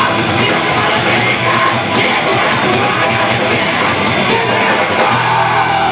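Hardcore punk band playing live: loud distorted electric guitar, bass and a drum kit pounding. About five seconds in the drumming thins and a chord is held, ringing on.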